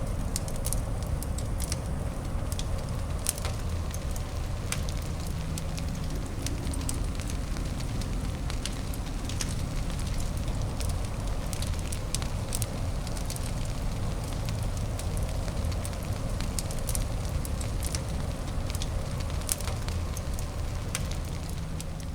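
Fireplace fire crackling: frequent, irregular sharp pops and snaps over a steady low rumble.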